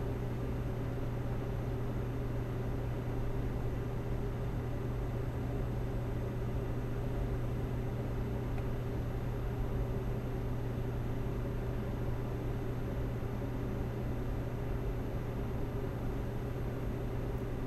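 Steady low hum with an even hiss over it, unchanging: background machine or room noise picked up by the microphone.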